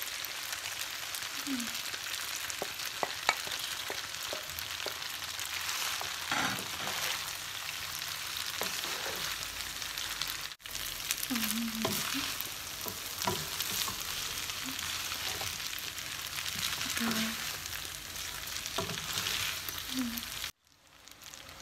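Stir-fried noodles sizzling in a hot frying pan as they are tossed and stirred with a wooden spatula, the spatula knocking and scraping against the pan.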